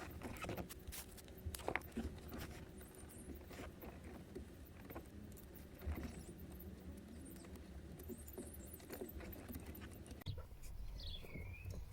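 Cloth wiring-harness tape being wrapped around car audio wiring: faint, irregular crackles and ticks as the tape pulls off the roll and is pressed round the cables. A low hum underneath stops about ten seconds in.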